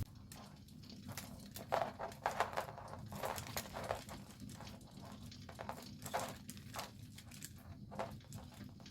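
Irregular light taps, clicks and rustling of things being handled, over a low steady room hum.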